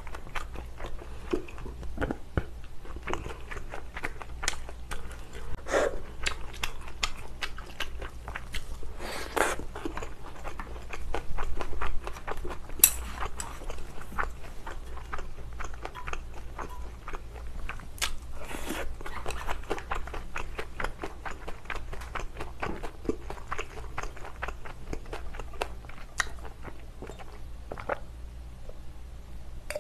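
Close-miked chewing, smacking and crunching of a mouthful of rice mixed with spicy glass-noodle stir-fry, with many short clicks and smacks throughout and a utensil scraping a glass bowl.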